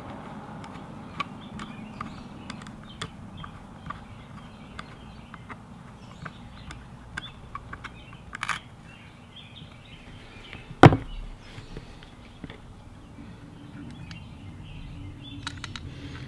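Small scattered metallic clicks and ticks of a screwdriver and screws being worked into the brass receiver of a Crosman 761XL air rifle during reassembly, over a faint steady hum. One sharp knock about eleven seconds in is the loudest sound.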